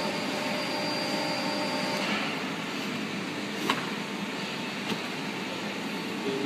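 Steady whir and hum of a large injection moulding machine's drive and hydraulics in a factory hall, with a faint high whine that stops about two seconds in. Two sharp knocks about a second apart come past the middle.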